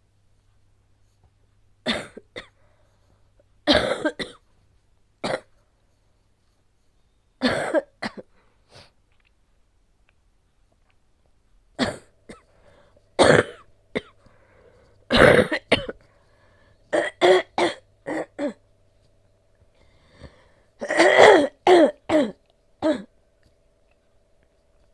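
A woman's harsh, phlegmy coughing from a COVID-19 infection: single coughs and short fits of three or four, with throat clearing, separated by pauses, and a longer coughing fit near the end. It is a wet chest cough bringing up thick, sticky phlegm.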